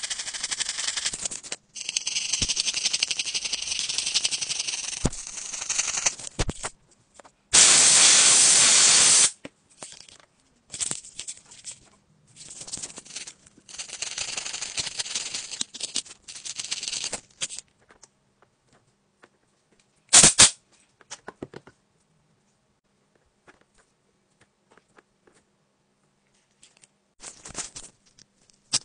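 Small bristle brush scrubbing the grime from a phone's bottom speaker grille, a close, scratchy rasping in bursts. A loud steady hiss lasts under two seconds about eight seconds in. The second half is mostly quiet apart from one short loud scrape.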